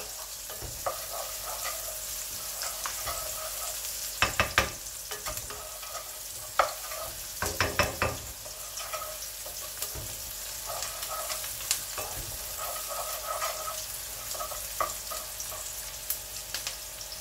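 Sliced shallots sizzling steadily in hot oil in a wok, frying until fragrant. A wooden spatula stirs them, knocking and scraping against the pan in a few short clusters, most about a third to halfway through.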